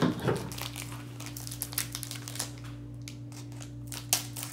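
Foil wrapper of a trading-card pack crinkling as it is handled, with a knock at the start and a sharp scissor snip through the wrapper near the end.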